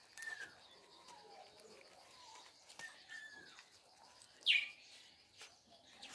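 Puppy whimpering: a series of short high whines, with one louder, sharper squeal about four and a half seconds in.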